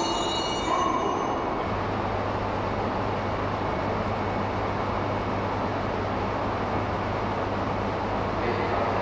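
Shinkansen train standing at a platform: a steady whirring hum from its on-board equipment with a low drone underneath. In the first second and a half there are several high-pitched tones from a train moving at the next platform.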